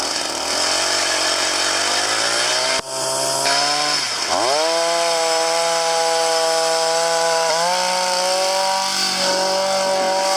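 Engine-powered ice auger drilling a hole in lake ice. The small engine revs up over the first few seconds, drops sharply in pitch about four seconds in and recovers, then runs steadily at high speed, stepping up slightly past halfway.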